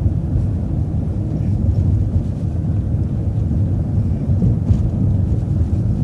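Steady low rumble of a transit bus on the move, engine and road noise heard from inside the cabin.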